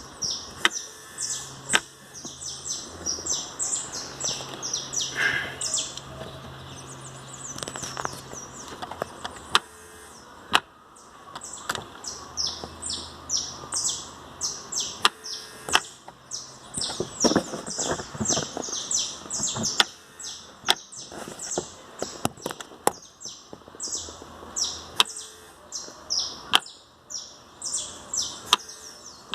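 Sharp plastic clicks every few seconds, the 'tec tec' of the automatic gear selector's brake-interlock plastic part, which clicks for want of lubrication. Birds chirp densely throughout.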